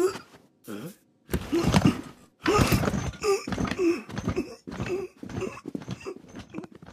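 Cartoon sound effects: a string of rustling and knocking noises, the longest about a second, the rest short and closely spaced.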